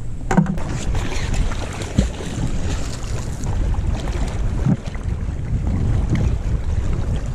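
Steady wind rumbling on the microphone, with a few faint knocks.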